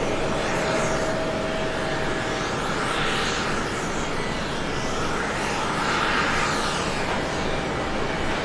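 Boeing 767-300ER's twin jet engines at takeoff power during the takeoff roll: a steady rush of jet noise with slow sweeping swells in tone as the airliner passes.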